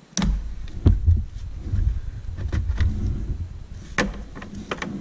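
Sharp plastic clicks and rustling as a wiring-harness connector and its wires are handled at a truck's fuse box, over a low rumble that starts suddenly just after the beginning.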